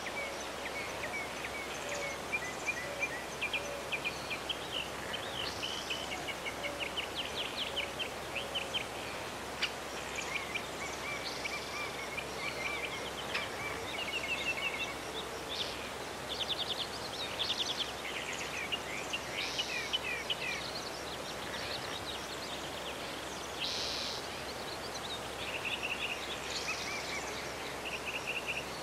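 Several songbirds singing over a steady outdoor hiss: short chirps and rapid trills, one bird after another.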